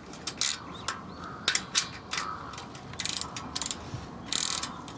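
Ratcheting socket wrench clicking in irregular runs as it is worked counterclockwise to loosen a bicycle's rear axle nut, with two faster runs of clicks about three and four and a half seconds in.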